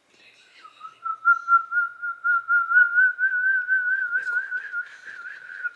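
A person whistling one long, slightly wavering note, held for about five seconds and drifting a little higher in pitch.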